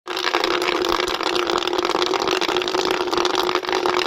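A stream of water splashing steadily into a partly filled plastic bucket, churning its surface, with rain falling on the wet ground around it.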